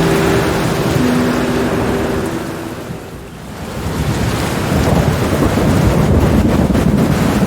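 Steady heavy rain with rolling thunder. The level dips briefly about three seconds in, then a deep rumble builds and carries on. A few soft sustained musical notes fade out in the first couple of seconds.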